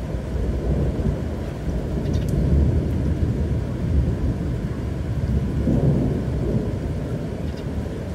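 Low rumbling thunder over rain, swelling about six seconds in.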